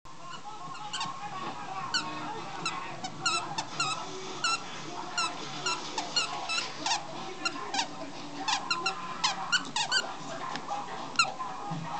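Dog's bunny squeak toy squeaking over and over as the dog bites and squeezes it: dozens of short squeaks at irregular intervals, sometimes in quick runs.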